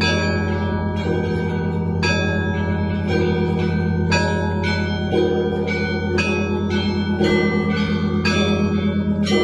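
Russian church bells of the Spaso-Preobrazhensky bell tower pealing: smaller bells struck in a quick repeating pattern about twice a second over the sustained low hum of the big bells.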